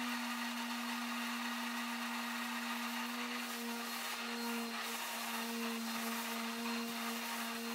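Electric random orbit sander running steadily against a wooden frame: a constant motor hum with a gritty rasp of abrasive on wood.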